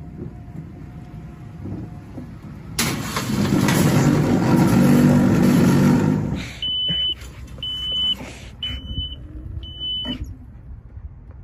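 Metal shopping cart rattling loudly as it is pushed fast over asphalt, for about three seconds. Then four short high-pitched beeps, about a second apart.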